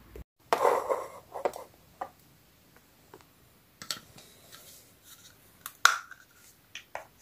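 Handling sounds of a small plastic phone charger being moved and set down on a rubber repair mat: a brief rustle, then scattered light clicks and taps, with one sharper knock near the end.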